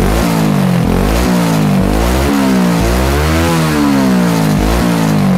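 Yamaha Vega R's small single-cylinder four-stroke engine revved through an F2 Racing CL Medium full-stainless racing exhaust fitted with a dB killer. The pitch rises and falls over and over with repeated throttle blips. The note stays tame and neighbourhood-friendly because of the dB killer.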